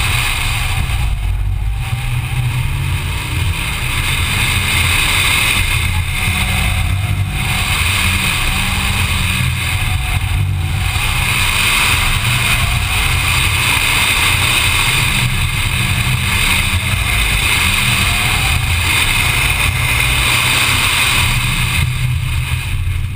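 Mitsubishi Evo's turbocharged four-cylinder engine running hard under acceleration on an autocross run, with three brief dips in the sound in the first half.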